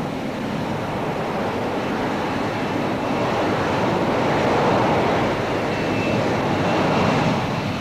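Jet roar from a Hawker P.1127 prototype's Pegasus vectored-thrust engine as it hovers low over the ground: a steady rushing noise that swells a little toward the middle.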